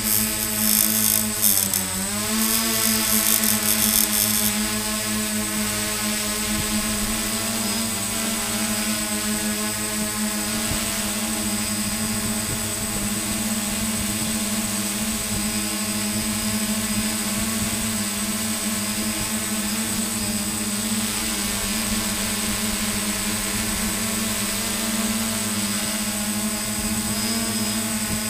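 Multirotor drone's motors and propellers humming steadily while it hovers, the pitch dipping briefly about two seconds in, with a thin high whine over the hum. A high hiss is there over the first few seconds.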